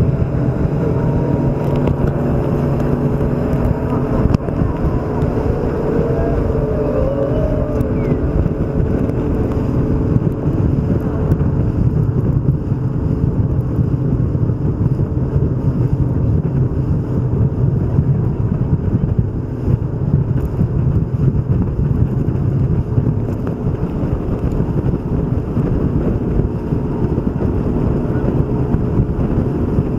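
Tour boat's engine running steadily under a wash of wind and water noise, with a steady hum.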